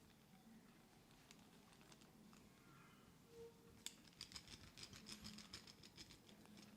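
Faint, rapid crackling and clicking of hands rubbing through hair on the scalp during a head massage, with a denser burst for about two and a half seconds starting about four seconds in.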